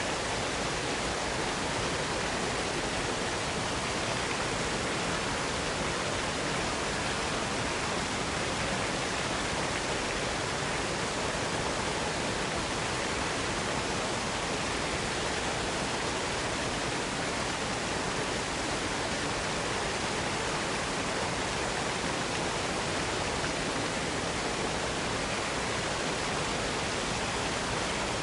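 Steady, unbroken rush of a waterfall: falling water making an even white noise.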